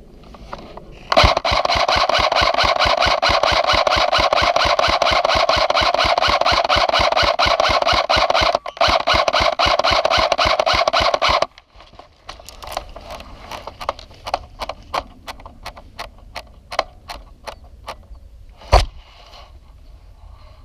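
Airsoft electric gun firing full-auto in one long burst of about ten seconds, a rapid even rattle over a gearbox whine, with a brief break about two-thirds through. Scattered single clicks and cracks follow, then one sharp knock near the end.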